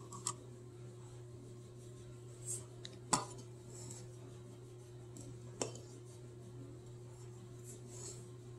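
A utensil clinking and scraping against a mixing bowl while dry ingredients are stirred: a few separate clinks, the sharpest about three seconds in, over a faint steady hum.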